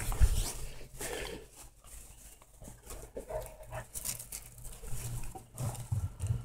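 Blue Heeler–shepherd mix puppies, eight weeks old, making faint, scattered short whines and yips, with a little rustling as they move about.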